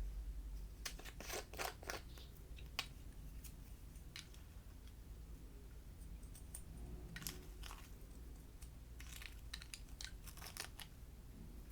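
Slime being squished and stretched by hand: clusters of quiet, sticky crackles and little pops, with short pauses between them.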